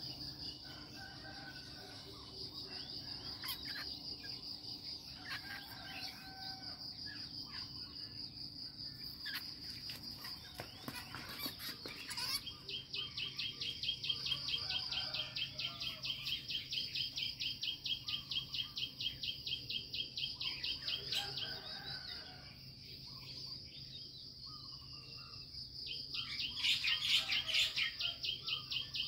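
Insects trilling steadily in a high, continuous chorus. A second, lower trill with rapid pulses joins about halfway through and again near the end. Birds chirp briefly now and then.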